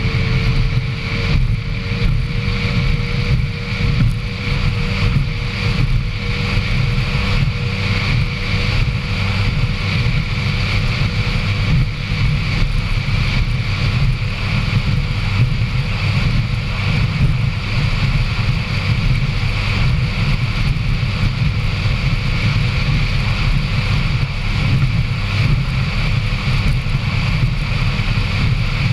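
Racing powerboat running at speed: a steady, deep engine and hull sound with wind buffeting the onboard microphone.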